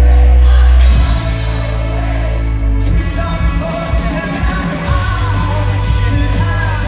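Live rock band playing with a singer. The loud, sustained bass drops away about a second in, and the band comes back in fuller about three seconds in, with the vocal line running over it.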